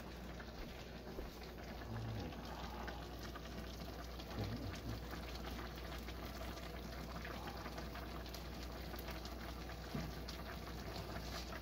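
Broth simmering in a wok under blocks of dry rice-stick noodles (bihon), a steady soft bubbling and crackling hiss as the noodles soak and soften.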